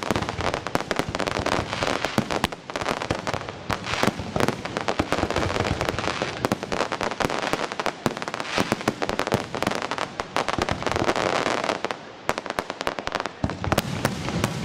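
Aerial fireworks display: dense, rapid crackling from many small pops as crackling stars burst overhead, with deeper bursts joining near the end.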